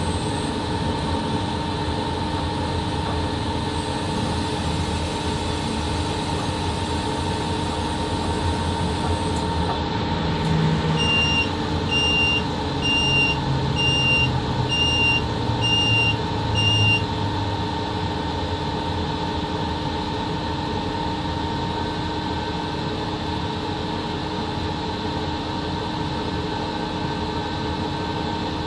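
Steady running noise inside the cab of a VL80 electric locomotive hauling a freight train: a hum with several steady tones. Partway through, seven short high beeps come about a second apart from a cab signalling device.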